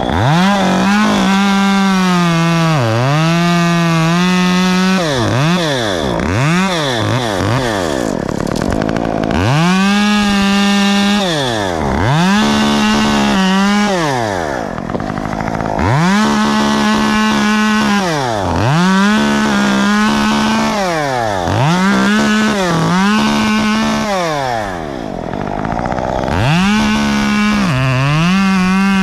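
Chainsaw cutting into a palm tree's dead fronds and fibrous trunk, the engine revving up to full speed and falling back toward idle over and over between cuts, with a few short quick blips of the throttle.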